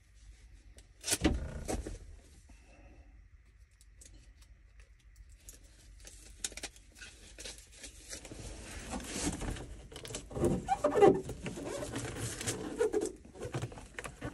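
Aluminum foil duct tape being handled and pressed down over a hole: crinkling and rubbing with scattered clicks. There is a sharp knock about a second in, and the handling gets busier and louder in the second half.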